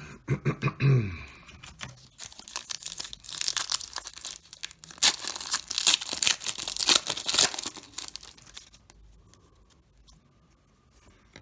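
Wrapper of a baseball card pack being torn open and crinkled by hand: a dense crackling tear lasting about six seconds.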